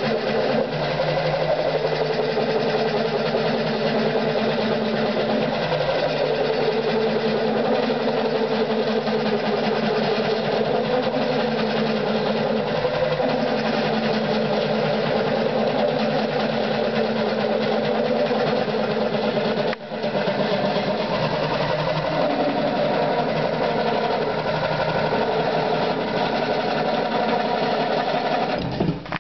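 Kel McNaughton Centre Saver coring knife cutting into a large maple bowl blank spinning on a Oneway lathe: a loud, steady, fast-pulsing cutting noise with the lathe running. It dips briefly about two-thirds of the way through and breaks off abruptly near the end.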